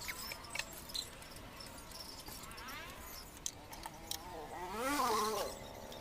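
An animal calling in the background with a wavering, rising-then-falling pitch, loudest about five seconds in, over scattered light knocks and clicks as wooden boards and clamps are handled on the workbench.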